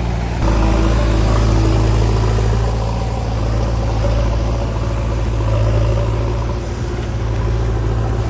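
Heavy diesel machinery engine running steadily at a low, even speed.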